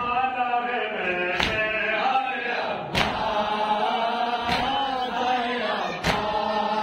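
Urdu noha, a Shia mourning lament, chanted by a male reciter with a group of voices following along. Four sharp thumps land evenly about every second and a half in time with the chant, typical of matam, the mourners striking their chests with their hands.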